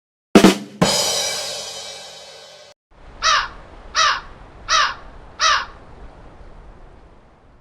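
A sharp hit and a ringing crash that fades over about two seconds, then a crow cawing four times, evenly spaced, each caw falling in pitch: stock sound effects.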